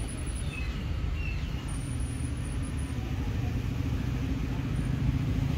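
Low, steady rumble of a train at the station, slowly growing louder.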